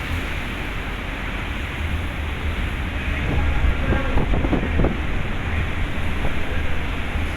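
Rough sea waves rushing under strong wind, with wind buffeting the microphone as a heavy low rumble. A brief cluster of knocks or rattles comes about halfway through.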